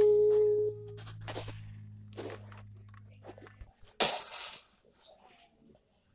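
A child's held sung note trails off in the first second, followed by a few faint clicks. About four seconds in comes a short, loud breathy hiss from the child's voice.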